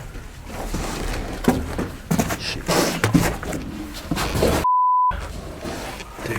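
Scuffing footsteps, rustling and knocking movement noise, cut about three quarters of the way in by a half-second censor bleep: a single pure steady tone that blanks out everything else.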